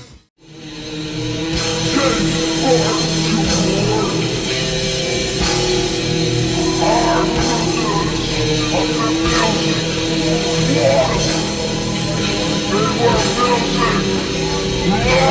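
Heavy rock music with guitar and a singing voice, starting again after a short break right at the beginning.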